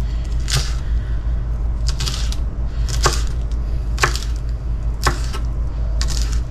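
Kitchen knife chopping cilantro on a wooden cutting board: single sharp knocks of the blade on the wood, about one a second, over a steady low hum.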